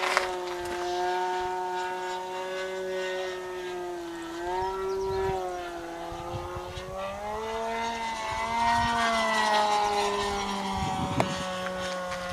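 Radio-controlled model airplane's engine running as a steady high buzz. Its pitch dips a little around the middle, then rises and falls back.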